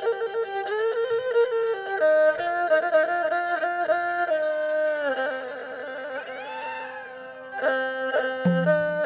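Isan pong lang folk ensemble playing: a lead melody of held notes that bend and slide. It drops quieter about halfway with a slow swooping glide, then the band comes back in louder near the end, with a low note joining underneath.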